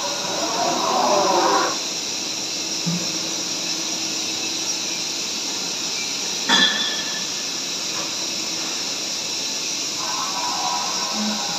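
Haas Super VF-3YT CNC vertical machining center running: a steady hiss with high whining tones, axis servo motors whining up and down in pitch for the first second and a half, and one sharp clunk about six and a half seconds in.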